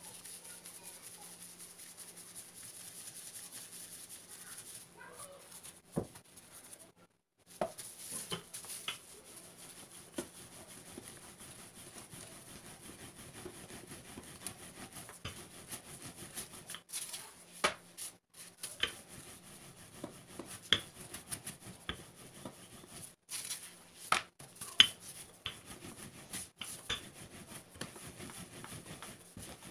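Rolling pin rolling out paratha dough on a wooden board: a low rubbing with scattered light knocks of the pin against the board.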